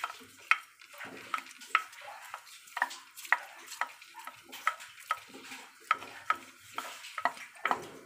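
Soaked glutinous rice being poured into a metal pot of broth, with a faint hiss and repeated light clinks, roughly two a second at uneven spacing.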